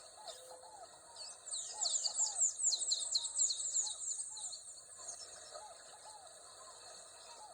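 Rainforest ambience: steady high insect drone, with a bird singing a fast run of high chirping notes from about one to four and a half seconds in, over short low calls repeating throughout.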